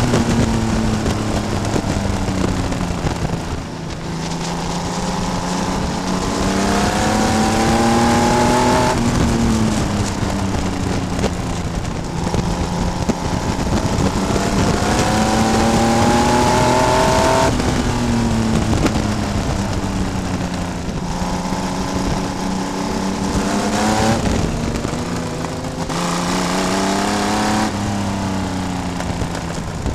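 Vintage race car's engine at racing speed, heard from an onboard camera. The engine note climbs for several seconds on each straight and drops sharply each time the driver lifts for a turn, several times over, over a steady rush of wind and road noise.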